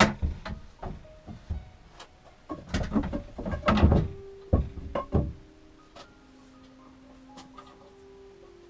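A run of knocks and clatters from objects being handled and set down, busiest and loudest about three to four seconds in, followed by a few quiet held notes.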